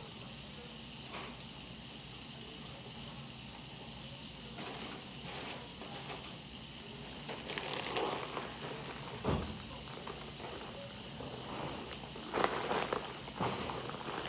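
Kitchen items being handled and put away: a few scattered knocks and clatters over a steady hiss, the loudest clatters near the end.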